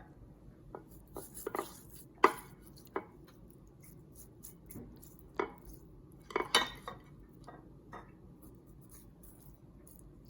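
Kitchenware being handled: irregular knocks and clinks of dishes and utensils, the sharpest about two seconds in and a cluster around six and a half seconds in.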